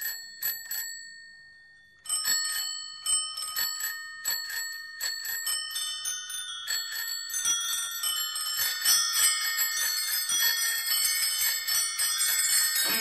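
Bicycle bells ringing as part of a recorded song. A few rings die away, then from about two seconds in many bells ring over one another, getting busier towards the end.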